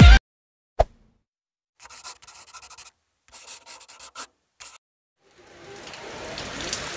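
Music cuts off, a single click, then about three seconds of short scratchy rubbing sounds. Near the end, a steady hiss of rain falling on a street fades in.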